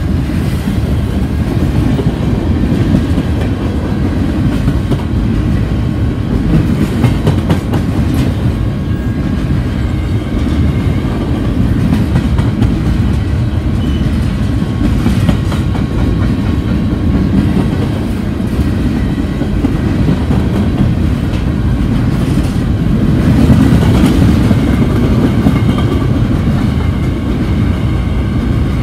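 Covered hopper cars of a freight potash train rolling past: a loud, steady rumble of steel wheels on rail with clicks over the rail joints.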